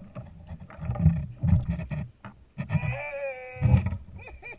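Dull low bumps, then a drawn-out animal cry about three seconds in, followed by short cries falling in pitch near the end.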